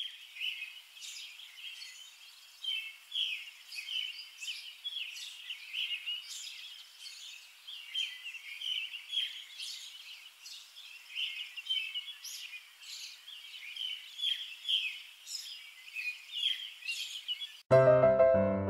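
Small birds chirping, a dense stream of short high calls overlapping one another. About a second before the end, louder piano music starts abruptly.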